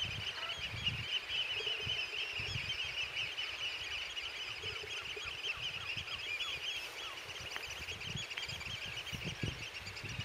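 A large flock of birds calling in a dense, continuous chorus of short, high, repeated calls. Wind gusts on the microphone underneath.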